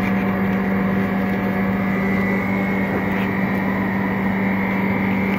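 Screen-separating freezer machine running, a steady hum with a thin, constant high whine above it.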